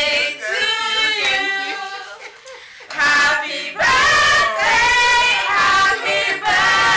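Voices singing together in long, drawn-out notes, with a brief dip about two and a half seconds in.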